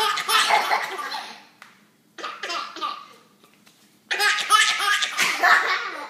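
A baby laughing hard in three bursts with short pauses between them; the last burst, starting about four seconds in, is the longest.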